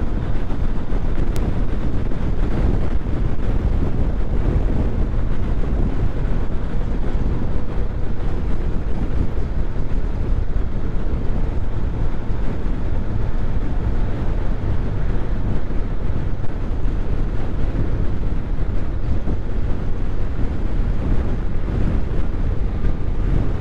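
Steady wind rushing over the microphone with road and engine noise from a vehicle on the move.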